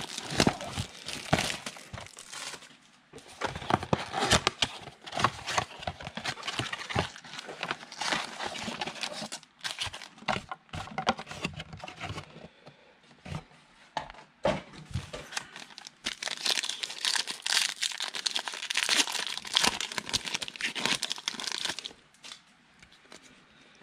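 Plastic wrapping on trading-card packs being torn open and crinkled, with packaging and cards handled in many small clicks and rustles. The crinkling is loudest for several seconds past the middle, then it quiets near the end.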